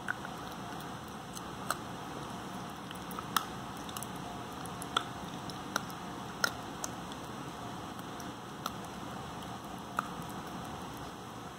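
Corgi puppy gnawing a hard dental chew: irregular sharp clicks and crunches of teeth on the chew, about nine over the stretch, over a steady hiss.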